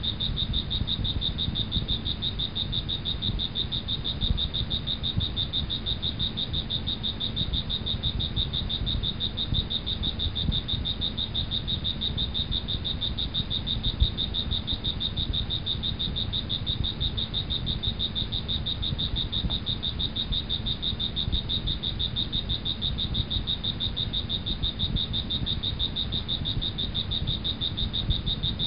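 Steady chorus of calling animals: a continuous high trill, rapidly pulsing and unchanging, over a low rumble.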